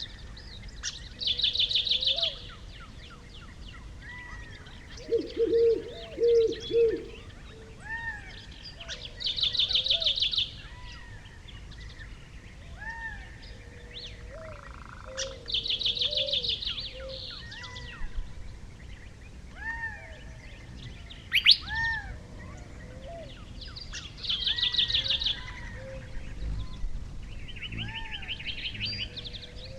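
Several songbirds singing and calling: a rapid high trill about a second long recurs every six to nine seconds over soft, repeated arched whistles and chirps, with three louder, lower calls about five seconds in.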